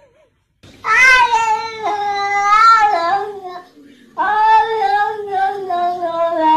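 A cat yowling: two long, drawn-out calls of about three seconds each, wavering in pitch, with a short pause between them.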